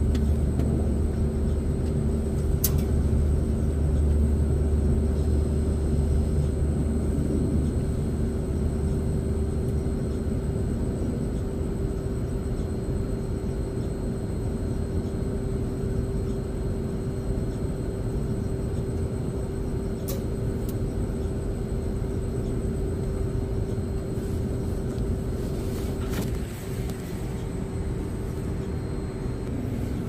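LG Multi V VRF outdoor unit running: a steady hum with one constant mid tone over a low rumble, the rumble heavier for the first ten seconds or so, with a few faint clicks.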